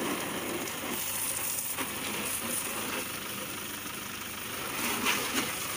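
Pressure washer spraying water, a steady hiss with the washer's motor running underneath.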